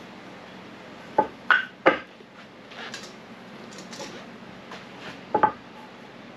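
Sharp knocks and clatters of small hand tools and wood being set down and handled on a wooden board: three quick knocks a little over a second in, softer scraping and rustling after, and a sharp double knock near the end.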